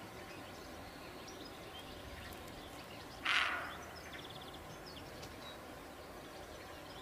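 A roe deer barking once, a short harsh bark about three seconds in, over faint bird chirps and a steady outdoor hiss.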